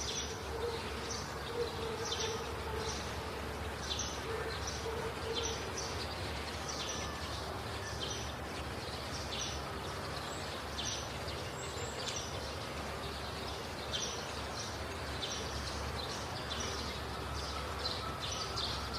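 Outdoor ambience: short high-pitched chirps repeating irregularly, about one or two a second, over a steady low hum and background noise.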